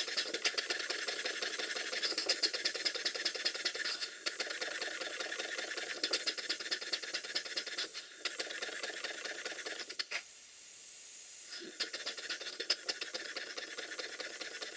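Stuart No. 1 model steam engine running, its valve timing newly reset: a quick, even train of exhaust beats and mechanical clicks over a steady hiss. Around two-thirds of the way through the beats stop for about a second and a half, leaving only the hiss, then pick up again.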